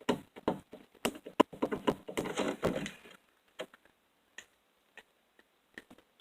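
Plastic slime container being handled and worked at to open: a quick run of clicks and taps for about three seconds, then a few scattered clicks.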